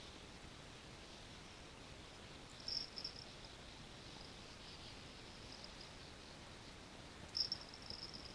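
Faint high-pitched insect chirring in the background, with two short louder bursts about three seconds in and near the end.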